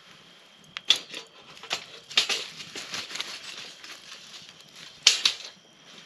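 A metal grill grate being set over a campfire onto the stones of the fire ring: a few sharp metal clanks, about a second in, near two seconds and again around five seconds, with clattering and scraping in between.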